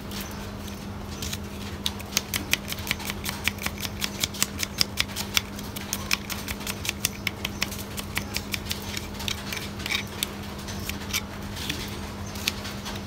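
Knife chopping red onions on a wooden chopping block: a quick run of sharp knocks, about four or five a second, starting about a second in and thinning out near the end.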